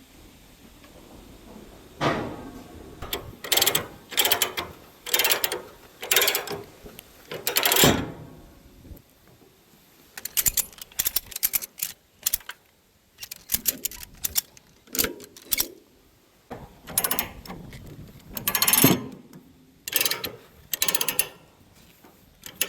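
Ratchet tie-downs being cranked to strap equipment down for hauling: irregular runs of ratcheting clicks and metal clanks, with short pauses between.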